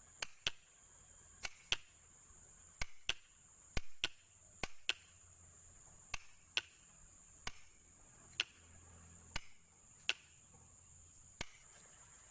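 Komatsu motor grader battery relay clicking sharply, about once a second and sometimes in quick pairs, as it is switched on and off straight from a battery. The relay is working again after its broken coil wire was soldered.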